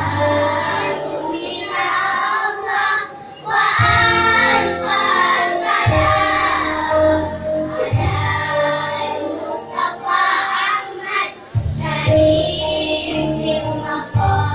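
A group of young children singing shalawat, devotional songs praising the Prophet Muhammad, together in unison, phrase by phrase. A low musical backing enters with each phrase.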